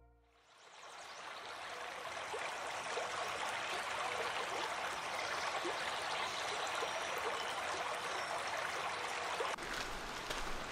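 Running water of a stream, a steady rush that fades in over the first second or two. Near the end it cuts to a different outdoor sound with a low rumble and a few sharp clicks.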